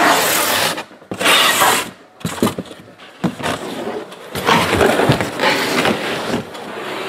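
Cardboard trading-card box and its tape being handled and opened: three bursts of scraping and tearing, with a few short knocks between.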